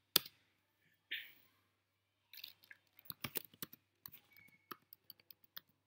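Typing on a computer keyboard: one key click at the start, then a run of quick, uneven key clicks from about two seconds in. A short hiss about a second in.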